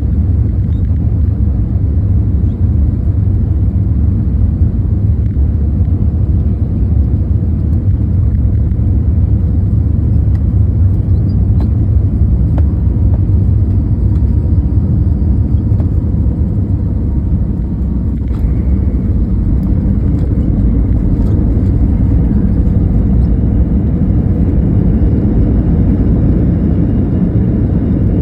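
Steady low rumble of an airliner's engines and rushing air, heard inside the passenger cabin during the landing.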